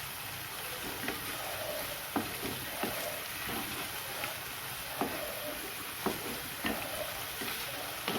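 Spice paste sizzling in hot oil in a kadai while it is stirred with a spatula, with irregular scrapes and taps of the spatula against the pan over a steady frying hiss.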